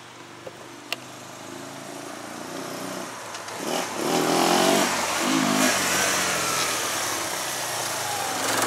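1999 Yamaha Wolverine 350 ATV's single-cylinder four-stroke engine as the quad is ridden toward and past the listener, growing louder as it nears. The engine note rises twice, about four and five and a half seconds in.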